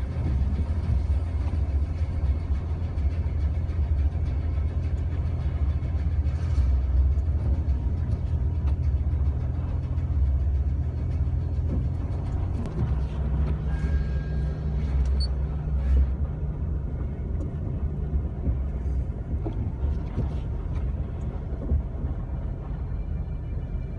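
Jeep Wrangler TJ driving in two-wheel drive on a snow-covered road: a steady low rumble of engine and tyres, with the engine note changing slightly about halfway through.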